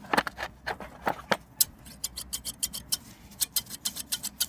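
Old pair of steel scissors handled and worked open and shut: a few knocks at first, then a quick run of crisp metal clicks, several a second, from the blades and pivot.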